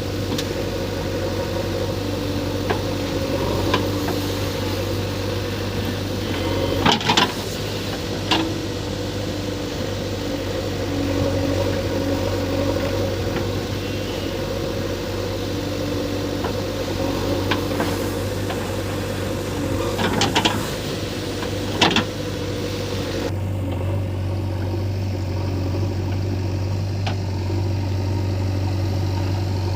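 Heavy diesel machinery engine running steadily, with a few sharp knocks and clatters in two clusters, one about a quarter of the way in and one a little past two-thirds. The engine note changes about three-quarters of the way through.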